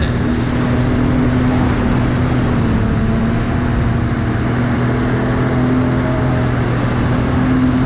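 Jet ski engine running steadily under way, a constant hum with a slight waver in pitch, over rushing water and wind noise.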